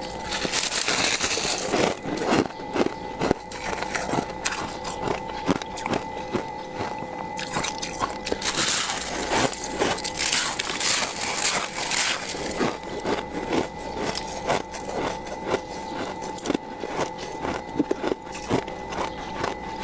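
Crunchy freezer frost being scraped: dense, irregular crunching and crackling strokes, thickest around a second in and again about halfway through. A steady hum runs underneath.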